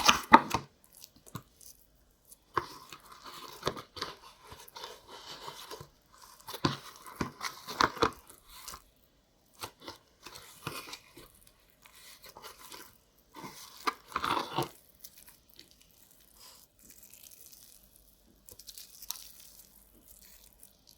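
Homemade slime being stirred and worked in a bowl: irregular bursts of scraping and pulling noise with quiet pauses between them.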